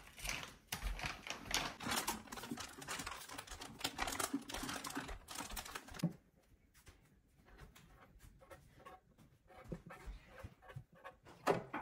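Plastic packaging rustling and plastic storage containers clicking as they are handled, dense for about six seconds. After that come quieter scattered taps and scratches.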